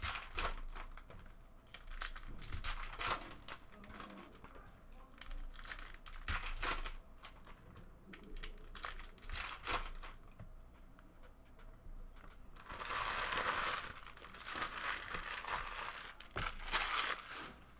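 Foil trading-card pack wrappers being torn open and crinkled, with many short rustles and snaps as cards are handled and stacked. A longer, louder stretch of crinkling comes about two-thirds of the way through.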